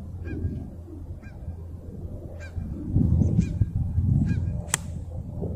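Geese honking in short calls about once a second, over a low wind rumble on the microphone. About three-quarters of the way through comes a single sharp click: a wedge striking a golf ball.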